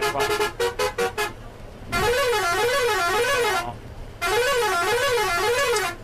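Bus air horns: a rapid string of short toots, about four a second, ending about a second in. About two seconds in, a musical horn sounds a warbling tone that rises and falls about twice a second; it stops, then sounds again after a short pause.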